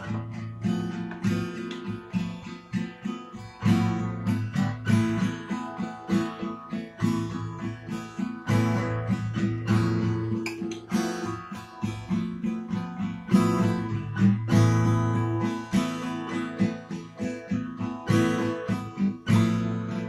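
Acoustic guitar strummed, chords ringing in a steady rhythm.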